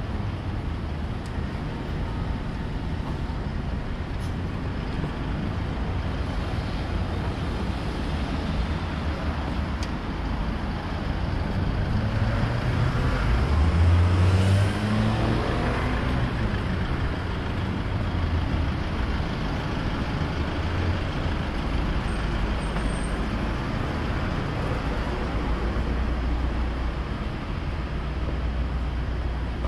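Street traffic with a steady low rumble. About twelve seconds in, a truck close by pulls away, its engine rising in pitch as it speeds up; this is the loudest part.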